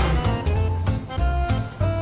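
Background music with a pulsing bass line, about two notes a second, under bright, ringing, chime-like notes and a regular beat.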